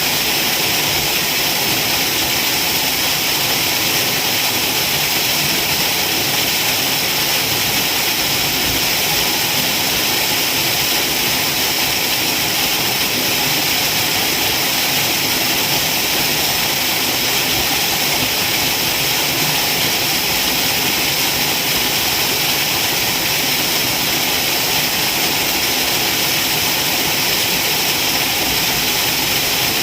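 Waterfall: a steady, unbroken rush of falling water, mostly a high hiss.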